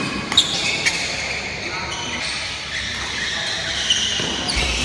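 Badminton doubles rally: rackets strike the shuttlecock with sharp hits, about 0.4 s in, again just under a second in, and near the end, while shoes squeak on the court floor.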